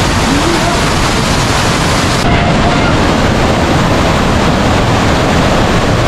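Loud, steady rush of water from a waterfall, its highest hiss dulling slightly about two seconds in.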